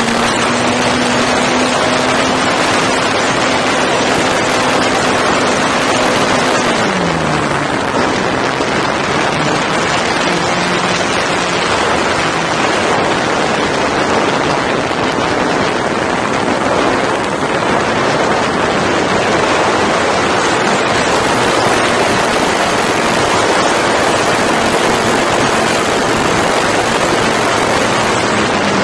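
Wind rushing over the microphone of a camera mounted on a flying RC P-51 Mustang model, with the steady hum of the model's motor and propeller underneath. About seven seconds in the motor's pitch slides down and then holds lower.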